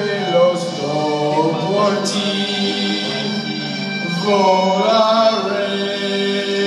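Man singing long, wavering held notes of a slow ballad over steady keyboard accompaniment, performed live.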